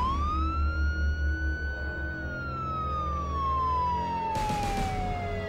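Ambulance siren wailing. It climbs quickly, holds high, slides slowly down over about three seconds, then climbs again at the end, over a low steady rumble.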